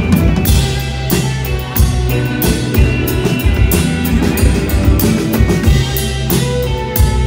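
Live rock band playing loudly: a double-neck electric guitar over a full drum kit, with frequent drum hits and sustained low notes.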